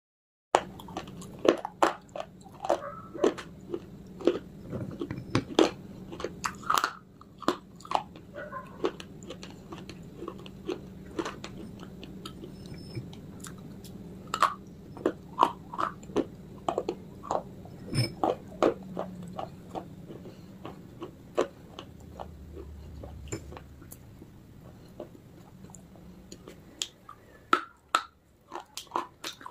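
Close-miked biting and chewing of baked clay pieces: many sharp, dry crunches in an irregular run.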